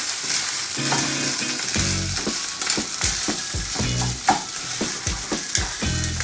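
Food sizzling in hot olive oil in a pan, with a utensil stirring and scraping against the pan in repeated short knocks. The heat is high enough that it is close to burning.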